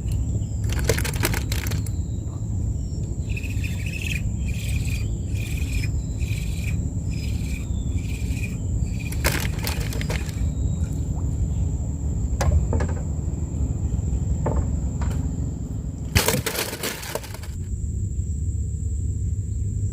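A bird chirping repeatedly, a run of short, evenly spaced chirps for several seconds, over a steady low rumble. A few brief noisy bursts come and go, the longest near the end.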